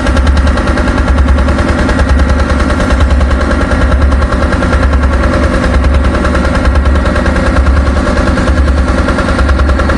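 A machine's engine running steadily, with a rapid, even chugging beat and a low throb that swells about once a second.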